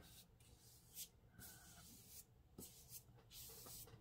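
Near silence, with a few faint, soft swishes of a big fat watercolour brush being stroked across paper to wet it with plain water.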